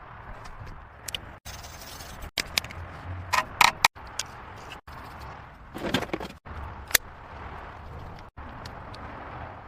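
Scattered clinks and clatters of hand tools and metal parts during car dismantling, over a steady low hum, with the loudest clusters about three and a half and six seconds in. The sound drops out abruptly several times where the clips are cut.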